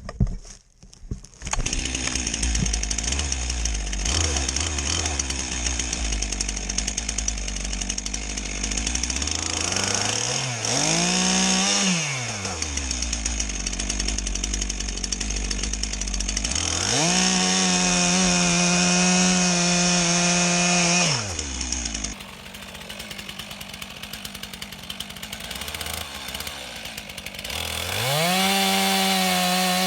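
Two-stroke chainsaw starting up about a second and a half in, then idling and being throttled up to a high steady whine three times before falling back each time.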